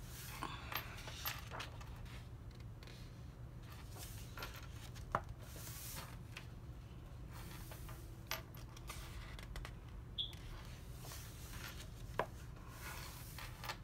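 Pages of a large paperback coloring book being turned and pressed flat by hand: soft paper rustling with several short sharp taps, the loudest about five seconds in and again near the end.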